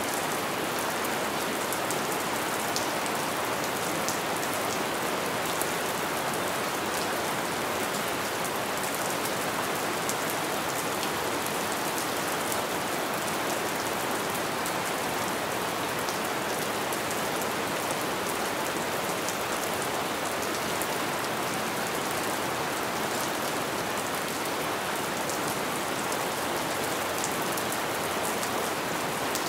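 Steady rain falling: an even hiss with a constant fine ticking of individual drops.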